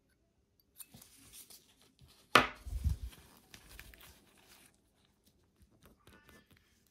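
Handling noise from a plastic-gloved hand crinkling and brushing close to the microphone, with one sharp knock and a dull thud about two and a half seconds in, then a few faint ticks.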